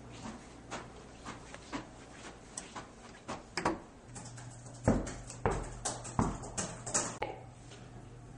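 Footsteps walking at about two steps a second, faint at first and becoming louder and heavier about halfway through.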